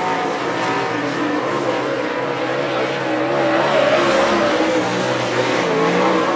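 Dirt late model race cars' V8 engines running hard around a dirt oval, several engines rising and falling in pitch as they go through the corners and down the straights.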